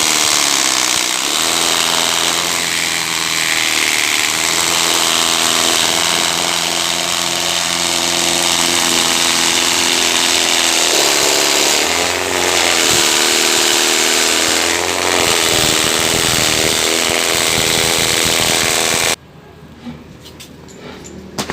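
Carpet dust-beating machine driven by a 1/2 HP electric motor, running loud and steady with a hum under a broad rushing noise. It cuts off suddenly about 19 seconds in, leaving a few faint clicks.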